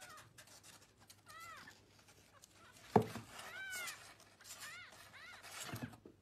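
Young kitten mewing: about four short, high-pitched mews, each rising and falling. A sharp knock about three seconds in is the loudest sound.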